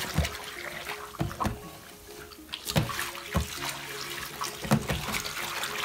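Aquarium saltwater pouring from a siphon hose into a plastic tote, splashing as it fills, with a few sharp knocks. Background music plays over it.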